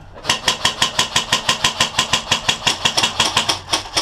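Airsoft electric rifle firing a long full-auto burst, a steady rattle of about eight shots a second, from a third of a second in to near the end.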